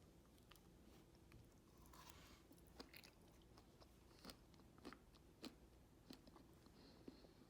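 Near silence with a string of faint, short clicks and ticks at irregular spacing, starting about a third of the way in.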